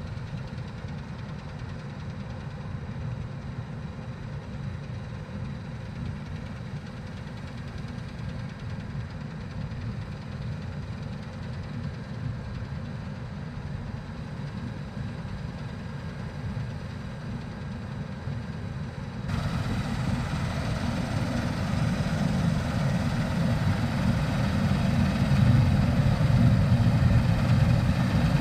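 Heavy diesel farm machinery running steadily with a low rumble. About two-thirds of the way through, the sound changes abruptly to a louder engine that grows louder toward the end.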